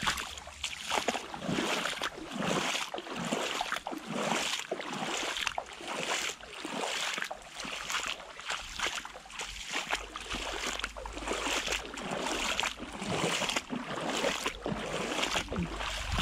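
Rubber boots wading through shallow muddy floodwater: a steady rhythm of splashing, sloshing steps.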